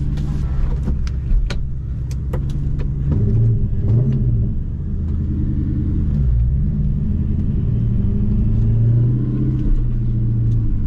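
2004 Ford Mustang GT's 4.6-litre V8 running through an off-road X-pipe and Borla S-Type exhaust. It runs low and steady, and its pitch rises and falls about three seconds in and again near the end. A few short clicks come in the first couple of seconds.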